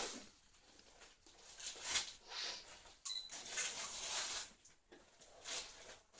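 Gift wrapping paper and tissue paper crinkling and tearing as a present is unwrapped by hand, in irregular rustling bursts.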